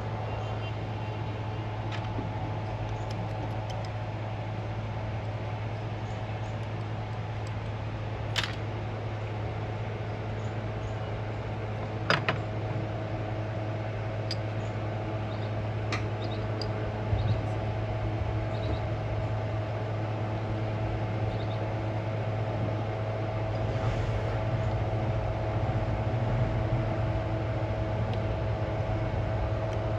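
A steady low mechanical hum with a few faint steady tones above it, broken by a handful of sharp clicks, about one every four seconds in the middle stretch.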